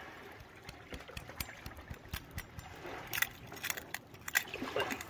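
A heavy knife clicking and scraping against Sydney rock oyster shell as another oyster is pried open, with several sharp clicks in the second half.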